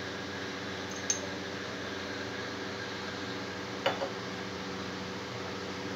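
Steady low mechanical hum, with light clinks of a steel spoon against steel dishes: one about a second in and two close together near four seconds.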